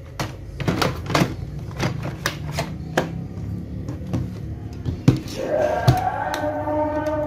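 Plastic clicks and knocks from the black plastic rear covers of a Canon G1020 inkjet printer as they are handled and fitted onto the printer's back. About five seconds in, a steady held tone with a few overtones comes in under the knocks.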